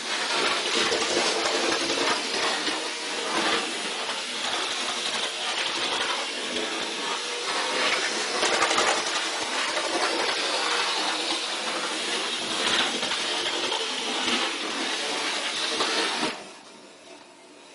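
Model railway locomotive running around the track: a steady rattle of wheels over the rails and rail joints with a faint motor hum. It cuts off suddenly near the end.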